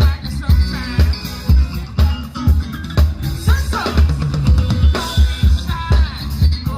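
Live band playing a funk groove: kick drum and snare on a steady beat of about two hits a second, with guitar or keyboard lines bending over the top and no vocals.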